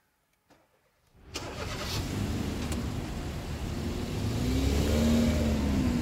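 Car driving off past. After about a second of quiet, engine and road noise come up suddenly and build to a peak about five seconds in, where the engine note rises and falls.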